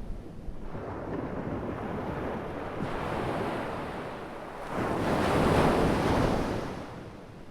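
Ocean waves breaking on the shore: a wash of surf builds about a second in, then a louder wave crashes about five seconds in and fades away near the end.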